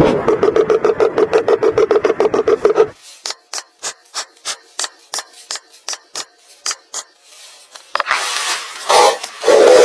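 A hand tool scraping wood. It makes fast, even strokes for about three seconds, then sharper separate strokes about four a second, and a few longer, rougher rubbing strokes near the end.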